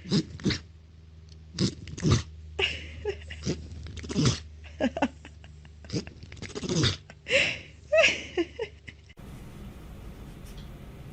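Pets sneezing: a quick run of short, sharp sneezes, more than a dozen in about nine seconds, then only a few after the background changes.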